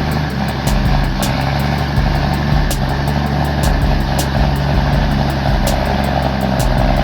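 Fully loaded log truck's engine labouring steadily up a steep grade under heavy load, a low drone with light clicks over it.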